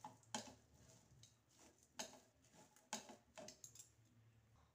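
A few faint taps and scrapes of a steel spatula against a nonstick pan as a dry potato stuffing is stirred, against near silence.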